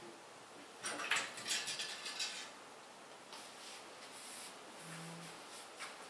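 Light clicks and metallic clinks of small computer parts and tools being handled on a table. The clatter comes in a burst of about a second and a half starting about a second in, with a few fainter ticks later.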